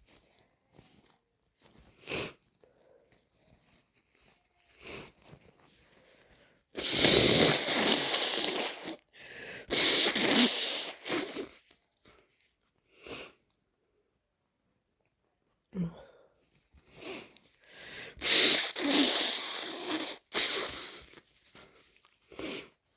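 A person with a heavy head cold sniffling, sneezing and blowing their nose. A few short sniffs come first, then two long, loud bouts, about seven seconds in and again about eighteen seconds in, with smaller sniffs between and after.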